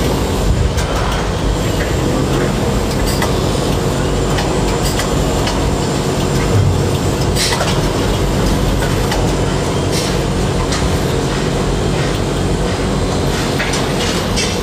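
Tower crane machinery heard from inside the operator's cab: a steady rumbling drone with a faint hum, and scattered clicks and rattles.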